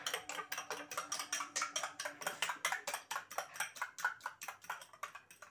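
A fork beating eggs with salt in a bowl: rapid, even clinking of the fork against the bowl, about eight or nine strokes a second.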